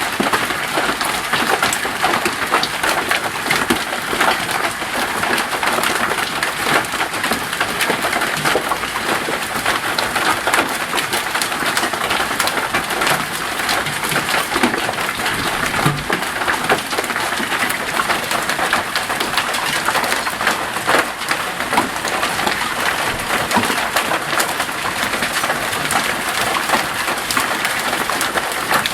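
Hailstones falling and striking hard surfaces: a loud, steady, dense patter of countless small clicks and taps.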